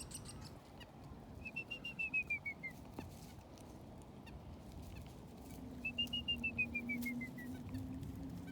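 A songbird singing twice, each song a quick run of about ten clear notes that rise slightly and then fall, the two songs about four seconds apart.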